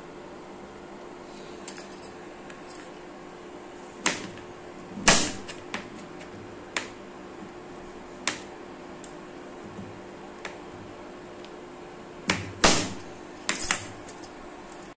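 Chef's knife chopping a block of white chocolate on a plastic cutting board: irregular sharp knocks of the blade hitting the board, about ten in all, the loudest about five seconds in and a quick cluster near the end.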